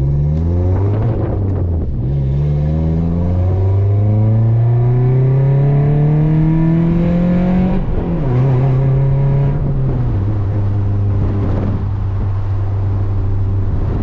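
Toyota Corolla's four-cylinder engine pulling up through the gears of a manual gearbox: the pitch climbs, falls at a gear change about 2 seconds in, climbs for a long stretch, falls again at a second shift about 8 seconds in, then settles to a steady cruise from about 10 seconds.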